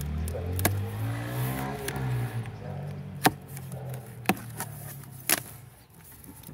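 A motor vehicle's engine runs close by, its pitch rising and then falling away over the first two or three seconds. Meanwhile a subwoofer's cardboard box is cut open and its flaps are folded back, giving a few sharp taps and clicks about once a second.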